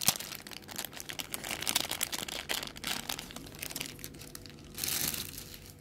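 Thin clear plastic bag crinkling and rustling in irregular crackles as a small toy is worked out of it by hand, fading near the end.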